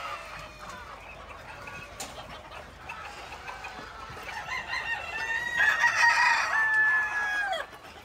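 A flock of chickens clucking, and from about five seconds in roosters crow loudly, the last crow long and held before it falls away.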